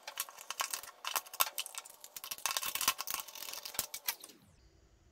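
Rapid plastic clicks and knocks as a Proskit MT-2207 analog multimeter is handled, turned face-down on a wooden workbench and its back battery and fuse cover is opened. The clatter stops about four seconds in.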